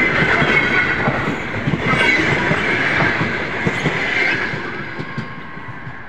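Double-deck passenger coaches rolling past close by, their wheels clacking over the rail joints under a heavy rumble with a steady high metallic ring. The noise fades over the last two seconds as the end of the train passes and moves away.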